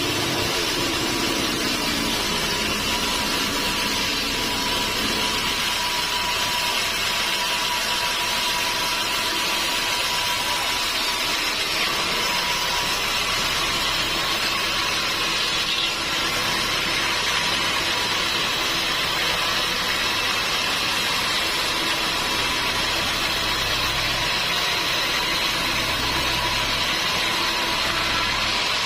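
Sawmill machinery running steadily, a continuous machine noise with a thin, constant whine over it.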